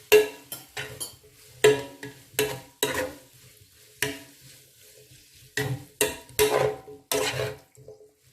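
Cooking utensil scraping and knocking against a metal pan while stir-frying noodles, in irregular strokes with a ringing note from the pan, with a faint sizzle underneath; the strokes stop near the end.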